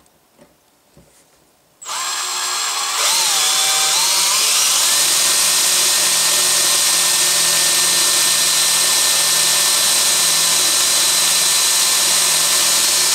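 Cordless DeWalt drill boring out a rivet in a Saiga rifle's steel receiver. It starts about two seconds in, winds up to speed over the next couple of seconds, then runs steadily.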